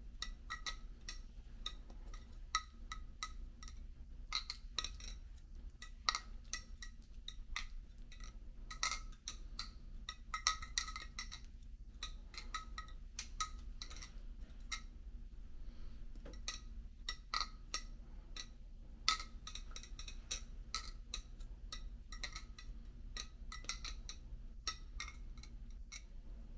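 Serif balisong (butterfly knife) being flipped: a rapid, irregular run of clicks and light clinks as the handles swing around the pivots and knock together, some clinks ringing briefly. The clicking thins out for a moment a little past halfway, then picks up again.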